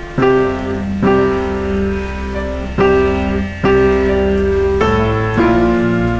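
Background piano music: chords struck one after another, each ringing and fading before the next.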